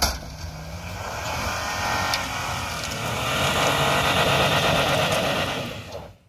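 Toyota FJ Cruiser's 4.0-litre V6 working hard as the truck climbs a snowy bank, with its tyres spinning and churning the snow. The rush of engine and tyres swells from about three seconds in and cuts off abruptly at the end.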